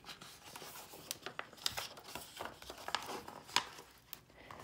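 A picture book's paper page being turned by hand: rustling and crinkling with a string of small sharp clicks, the loudest about three and a half seconds in.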